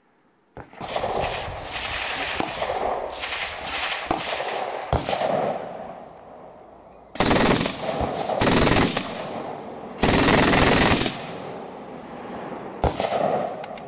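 MG 42 machine gun, chambered in 7.92×57 mm, firing bursts at its very fast rate of about 1,500 rounds a minute. Gunfire runs through most of the stretch, with three loudest bursts of under a second each in the second half and a weaker one near the end.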